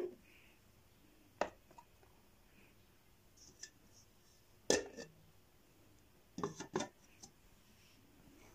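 Sharp knocks and clinks of hard objects being set down as a plaster bust is placed on a round black display base and a clear display dome is fitted over it. One knock comes about a second and a half in, a louder one near the middle, and a quick cluster of clicks a little later.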